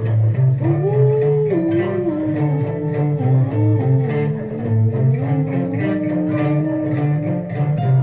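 Instrumental guitar music: a picked melody, with some notes sliding between pitches, over a repeating low bass line.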